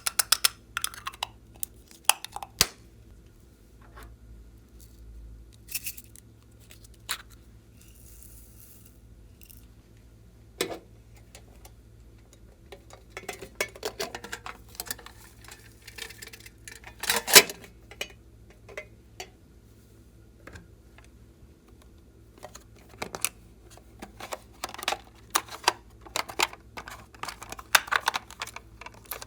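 Slime being squeezed and poked by hand, giving irregular sticky clicks, pops and crackles. It is sparse for a few seconds, then comes in dense clusters, the loudest pops a little past the middle.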